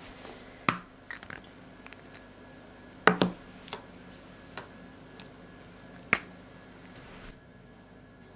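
Felt-tip markers being handled while switching colours: sharp plastic clicks, three of them loud, at under a second, about three seconds and about six seconds in, with fainter ticks between.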